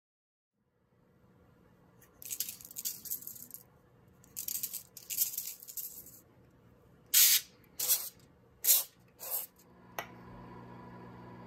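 Coarse-grind pink Himalayan salt grinder being twisted to season fish fillets: two longer stretches of gritty grinding, then four short sharp bursts. A click and a steady low hum come in near the end.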